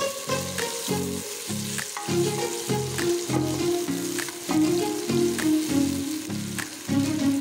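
Freshly added sliced onions sizzling in hot oil in a steel pot as they are stirred, with background music of short, evenly repeated low notes.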